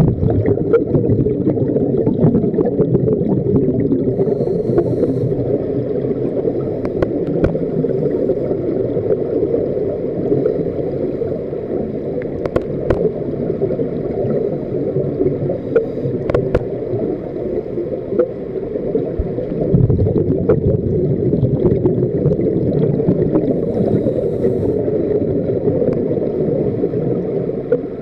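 Muffled underwater sound of scuba divers breathing through their regulators, with exhaled bubbles gurgling, heard as a continuous low rumble with a few sharp clicks scattered through it.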